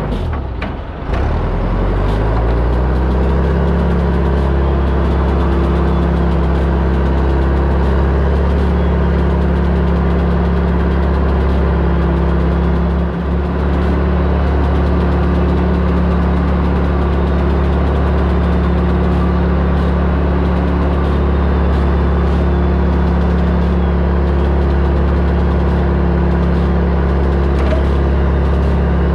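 Diesel engine of a heavy logging machine running steadily, heard from the operator's seat. Its pitch rises in the first two seconds and then holds steady.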